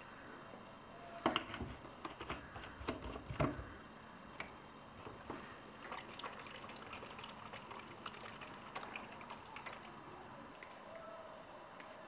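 A small plastic bottle being handled, with liquid inside: a cluster of sharp knocks and clicks a second or so in, then lighter scattered clicks.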